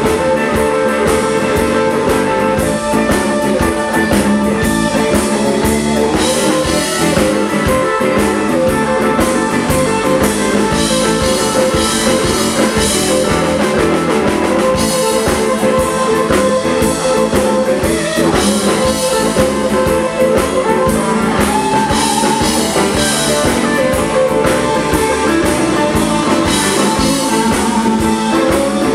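A live roots-rock band playing, with electric guitars over a drum kit, keeping up a steady loud groove.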